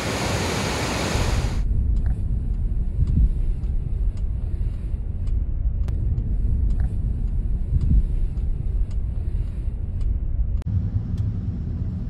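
A loud rushing hiss cuts off abruptly about a second and a half in, giving way to a steady low rumble with a few faint clicks.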